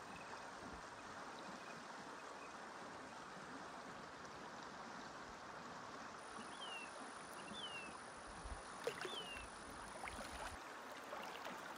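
Faint, steady murmur of water in a shallow hot spring pool. Three short, falling high chirps come in the middle, and light splashing follows near the end as a person gets up in the water.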